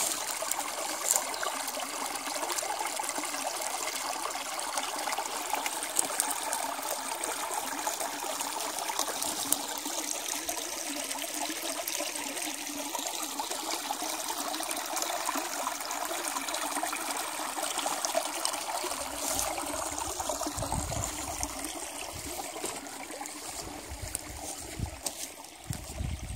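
Small, shallow woodland stream running over a muddy bed: steady trickling and babbling water. From about two-thirds of the way in, low rumbling bursts come and go over it.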